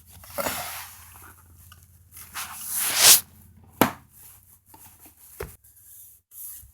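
Plastic door-sill scuff trim being handled and pressed into place, with rustling and scraping, a loud sharp snap about three seconds in as its clip is pushed home, then a couple of lighter clicks.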